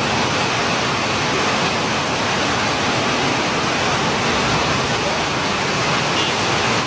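Rushing floodwater: a steady, loud rush of water.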